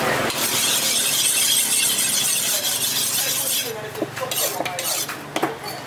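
Busy market noise: a loud steady hiss for about three and a half seconds. It drops away into scattered sharp clinks and knocks with faint voices behind them.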